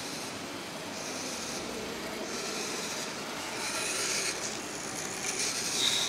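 Small toy robot's geared motors whirring steadily as it drives its wheels along a line on a paper mat. From about four seconds in, a hand handles the robot, adding louder rubbing and rasping.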